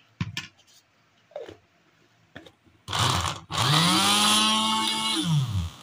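A few plastic clicks and knocks, then about three seconds in an electric food chopper's motor switches on, spins up to a steady whine while chopping raw minced meat, and winds down in pitch near the end.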